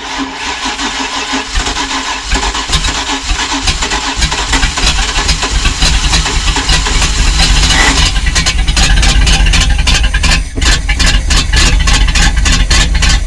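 Chevrolet Vortec 350 V8 boat engine, started by jumping the starter solenoid, firing and running with no cooling water hooked up. The sound is loud, and its note changes about eight seconds in to a heavier, pulsing run.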